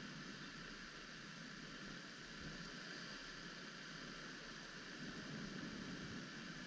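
Faint, steady hiss of background noise with no distinct events.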